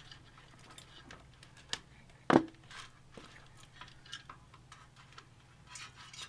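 Small clicks and taps of PC fan cables and plastic connectors being handled inside a computer case, with one sharp click about two seconds in, over a steady low hum.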